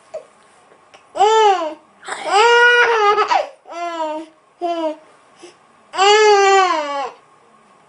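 Baby vocalising: about five drawn-out, high-pitched sounds that rise and fall in pitch, the longest about a second and a half.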